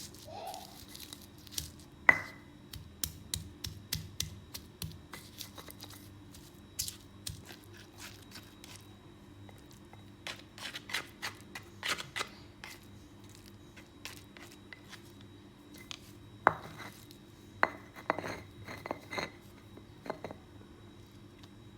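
Kitchen food-preparation handling sounds: irregular clicks, taps and knocks of utensils and ingredients being worked, the loudest knock about two seconds in and another cluster of knocks near the end.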